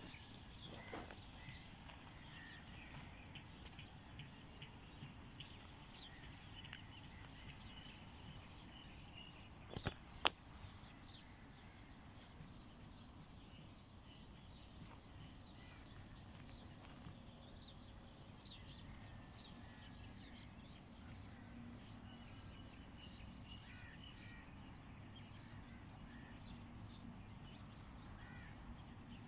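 Faint outdoor ambience with small birds chirping throughout in short, high calls. A few sharp clicks about a third of the way in stand out as the loudest sounds.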